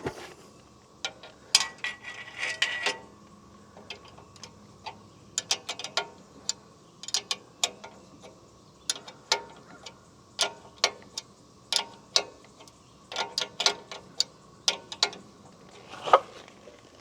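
Sharp metallic clicks in short irregular runs as a wrench turns an adjustment bolt on the saw head of a Woodland Mills HM130 Max bandsaw sawmill, bringing the blade level with the bed. A faint steady hum runs underneath.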